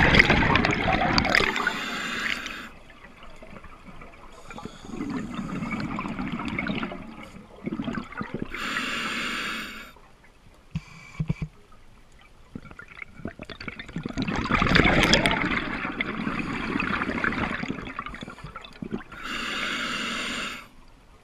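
Scuba regulator breathing underwater. Three short hissing inhalations draw through the demand valve, at about two, nine and twenty seconds in. Exhaled bubbles gurgle out between them, loudest about a second in and again around fifteen seconds.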